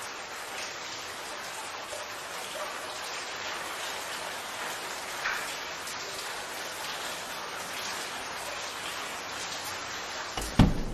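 Steady hiss like falling rain, with scattered light ticks, and one sudden loud knock near the end.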